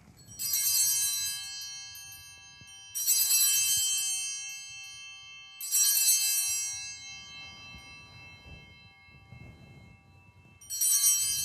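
Altar bells rung four times during the elevation of the host at the consecration, each ring bright and fading slowly over a couple of seconds; the last comes after a longer pause.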